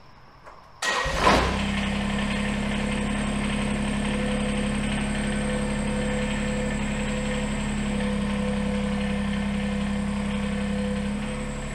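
Kubota BX23s tractor's three-cylinder diesel engine comes in abruptly about a second in, then runs steadily at raised throttle, around 2000 rpm, dropping slightly near the end.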